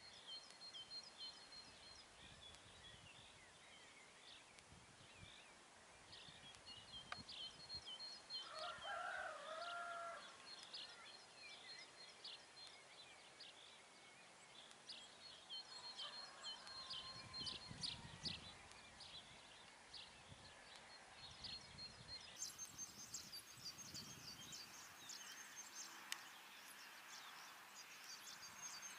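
Faint wild songbirds chirping and trilling in short, high-pitched repeated phrases, with one lower, drawn-out call about nine seconds in.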